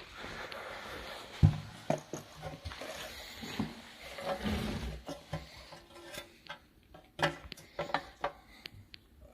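Irregular knocks and clinks of hard objects being handled, like tools or parts being picked up and set down. They come over a hiss for the first five seconds, then thin out to a few sharp clicks.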